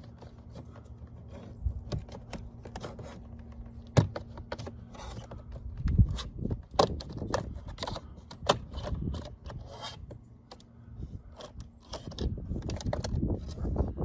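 Prying at a plastic car-door trim piece with trim-removal tools: irregular scraping, rattling and sharp clicks and knocks, the loudest about 4, 6 and 8.5 seconds in.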